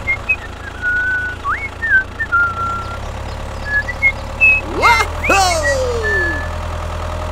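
Steady low engine drone of a tractor, with short high whistled chirps scattered over it and a loud falling, sliding tone about five seconds in.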